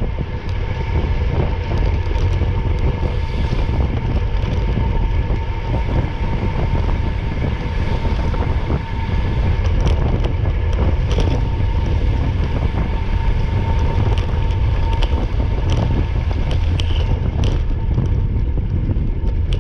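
A moving vehicle's steady engine drone with heavy wind rumble on the microphone and a constant whine on top, with a few scattered clicks.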